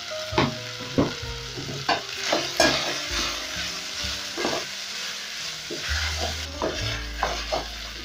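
Goat meat, onions and green capsicum frying in an aluminium pot while being stirred with a wooden spoon: a steady sizzle with repeated scrapes and knocks of the spoon against the pot, about two to three a second at times.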